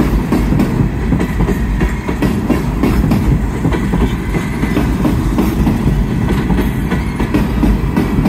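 Open-top freight hopper cars rolling past close by: a steady rumble of steel wheels on rail, with a quick run of clicks and knocks as the wheels pass over rail joints.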